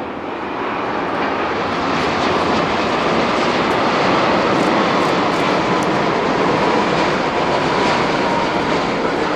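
Jet noise of a Boeing 787-8 airliner on its landing approach: a loud, steady rush from its turbofan engines, with a faint whine coming through in the second half.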